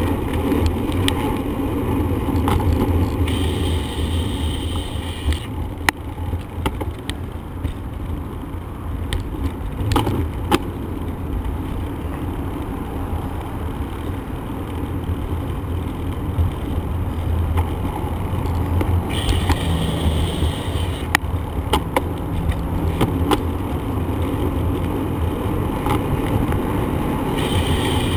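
Steady wind rumble on the microphone and road noise from a bicycle being ridden, with a few sharp knocks from bumps.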